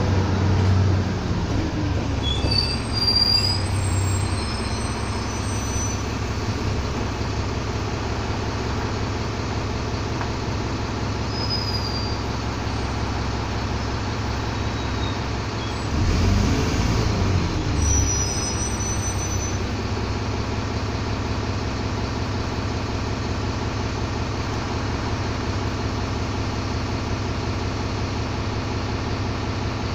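Cabin noise aboard a moving Alexander ALX400 double-decker bus: a steady engine and road drone. The engine note falls right at the start, and about sixteen seconds in it gets louder, dips and rises again. A few brief high squeaks come in the first few seconds and again around eighteen seconds.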